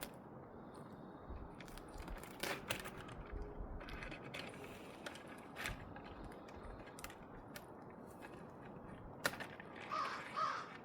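Scattered clicks, knocks and crinkling from hands taking apart a bird feeder; near the end a crow caws twice.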